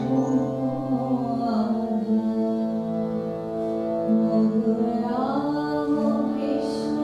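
Devotional song: a woman singing long held notes over the steady reed chords of a harmonium.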